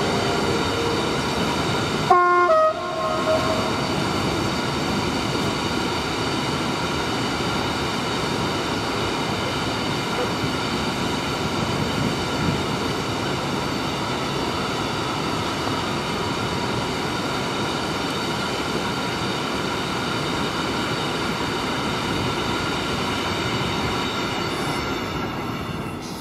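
Freight train of rail tank wagons rolling past, a steady noise of wheels on rail joints and track. About two seconds in there is a brief, loud tonal sound. The noise fades near the end as the last wagon goes by.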